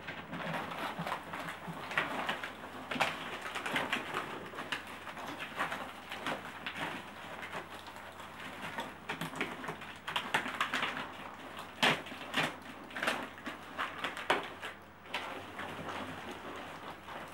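A ferret moving through a flexible corrugated plastic tunnel, making uneven bursts of short scratchy clicks and rustles.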